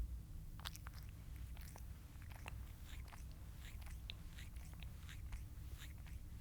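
A cat chewing food: an irregular run of sharp clicks and bites, a few each second, over a low steady hum.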